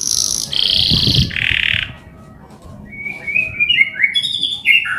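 Male canary singing. It opens with rolling trills that step down in pitch from very high to middle over about two seconds. After a short lull comes a run of quick, repeated falling chirps that grow louder near the end.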